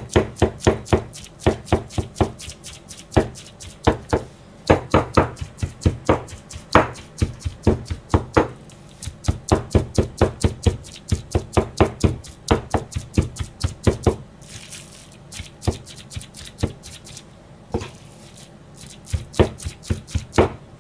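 Chinese cleaver chopping and mincing meat-and-vegetable gyoza filling on a cutting board. The blade strikes in quick runs of knocks, about four a second, broken by short pauses.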